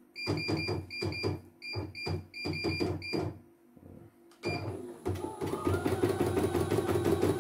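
Control-panel key beeps of a CNY E900 embroidery machine: a rapid string of short, high beeps as its buttons are pressed. Near the end the machine's motor starts running with a fast, even ticking that grows louder.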